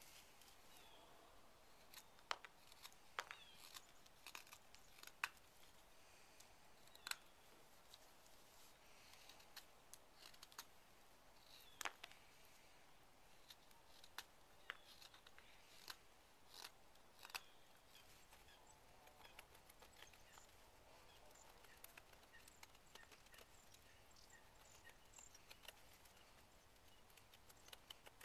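Carving knife slicing shavings from a green trembling aspen spoon blank: faint, irregular sharp snicks and short scraping cuts, thinning out in the last third.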